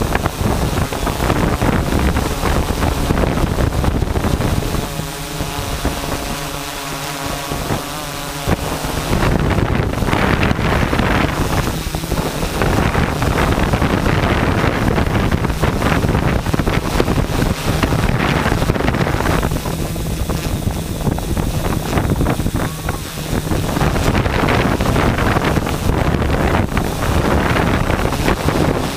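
Multirotor drone's propellers whirring steadily, with heavy wind noise buffeting the microphone. A clear steady hum dominates for the first several seconds, after which rushing wind noise takes over.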